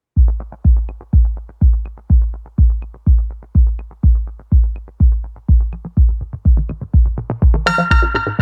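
Electronic dance music: a steady kick-drum beat, about two beats a second, with light ticks between; bright synth chords come in near the end.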